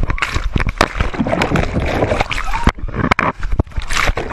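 Seawater splashing and sloshing right at the microphone, broken by many sharp knocks and clicks.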